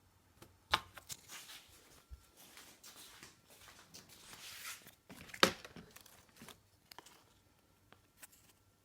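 Objects being handled at close range: sharp knocks about a second in and, loudest, about five and a half seconds in, with scraping and rustling between them and a few light clicks near the end.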